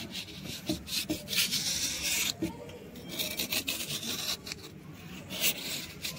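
Steel knife blade scraping across a wet slab of soft white shale stone, shaving off thin curls of stone in a string of uneven strokes, one longer drawn-out scrape in the first half.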